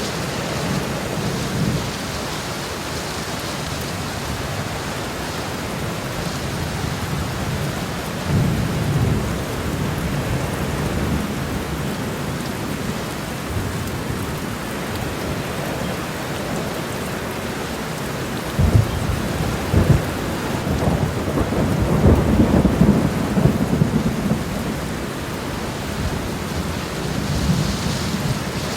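Heavy rain pouring onto a road: a dense, steady hiss with a deep low rumble. About two-thirds of the way through it swells louder for several seconds, with a few sharp low thuds.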